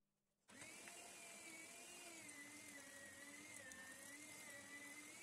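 Electric meat grinder running as it minces raw meat: a steady, quiet motor whine whose pitch wavers slightly, starting about half a second in.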